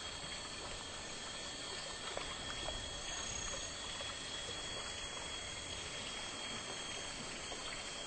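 Steady jungle-river ambience: an even hiss of flowing water with a constant thin high-pitched tone over it and a few faint ticks.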